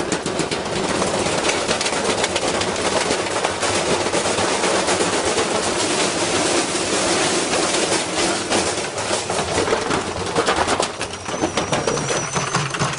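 Washing machine with a brick in its drum, spinning and shaking itself apart: a continuous rapid banging and clatter of the drum against the casing as panels break off.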